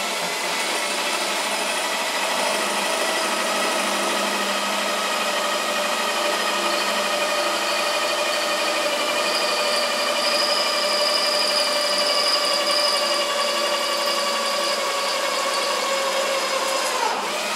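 Cordless drill running steadily under load, boring a bolt hole through a PVC pipe: one long even whine that winds down as the trigger is let off near the end.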